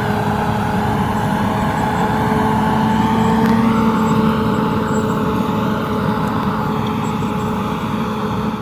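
Komatsu D68ESS crawler bulldozer's diesel engine running at a steady speed, with a low rumble under a constant engine note.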